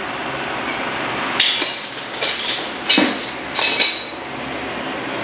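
Metal hand tools clinking against a car's front brake caliper during reassembly: a handful of sharp, irregular clinks with a short ring, starting about a second and a half in and stopping a little before the end, over a steady background hiss.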